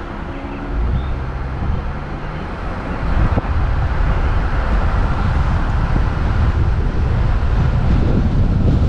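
A Jeep Wrangler's engine running as it drives, heard from a camera mounted on its hood, with road noise. From about three seconds in, a louder low rumble of wind buffeting the microphone takes over.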